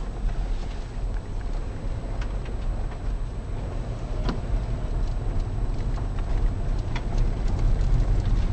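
Steady low rumble of a moving car heard from inside the cabin, with a few faint ticks.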